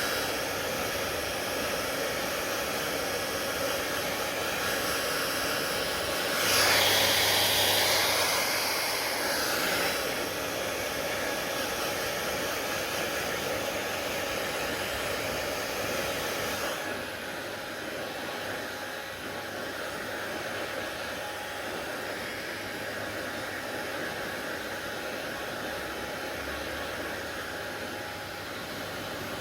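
Hair dryer blowing steadily. It gets louder and brighter for about three seconds, then about halfway through drops to a softer, duller hiss.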